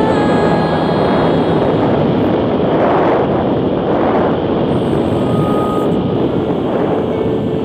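Yamaha Raptor 700R quad's single-cylinder engine running at road speed, buried in heavy wind rush on the microphone, swelling twice near the middle.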